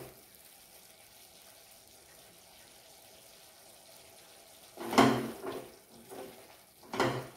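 Faint steady hiss of a spice paste frying in a steel kadai, then a spatula knocking and scraping in the steel pan, two sharp clanks about five and seven seconds in.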